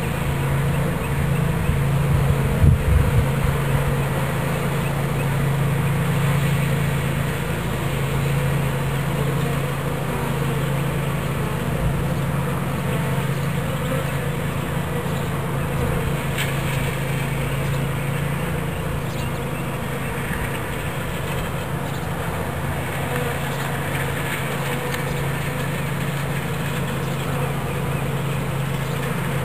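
Swarm of honeybees buzzing, a steady low drone.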